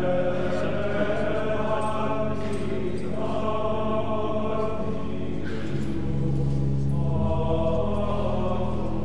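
Voices singing a chanted sung part of the Mass in phrases, over steady held low notes that change pitch a few times.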